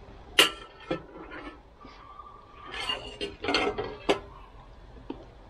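Metal spoon clinking against dishes during a meal: a sharp clink about half a second in, a lighter one a moment later, a busier run of handling and eating noises a little before four seconds in, and another sharp clink just after.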